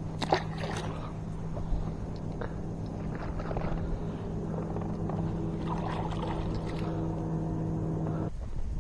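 A steady motor hum with even overtones that holds one pitch and cuts off suddenly about eight seconds in. A couple of light clicks come near the start.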